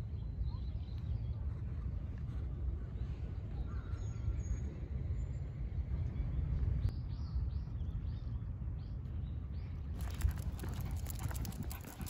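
Wind rumbling on the microphone, with faint bird calls. From about ten seconds in, a Shih Tzu's claws and paws clicking rapidly on pavement as it walks.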